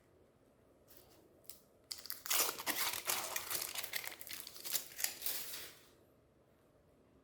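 Chocolate-bar wrapper crinkling and tearing as it is opened, dense crackling for about four seconds starting about two seconds in, after a couple of light clicks.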